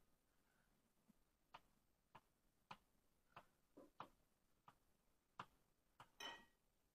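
Faint, irregular sharp taps and clicks of writing on a board, about ten strokes, with a slightly longer scrape near the end.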